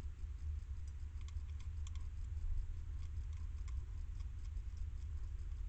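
Hedgehog eating from a metal bowl: small irregular clicks and crunches of chewing, over a steady low hum.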